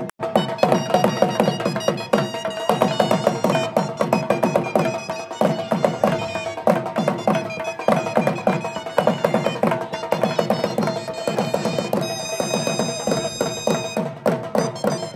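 Traditional folk dance music: a dhol barrel drum beaten in a fast, driving rhythm, with a melody instrument holding steady notes above it.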